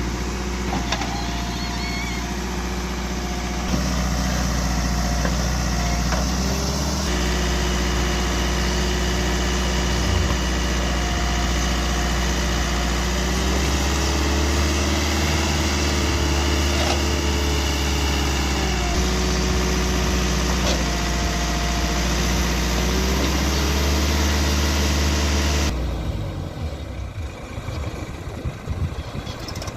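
Heavy diesel engine of earth-moving machinery running steadily, with a thin whine that rises and falls in the middle. About 26 seconds in, the steady engine sound drops away to a quieter, uneven rumble.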